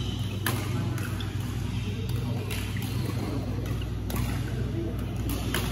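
Badminton hall sound: sharp racket strikes on shuttlecocks from the surrounding courts, one every second or two, over a steady low hum.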